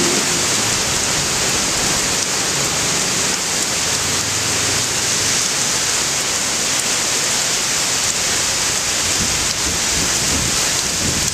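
Heavy, steady hurricane rain: a dense, even hiss. Low wind rumble builds near the end.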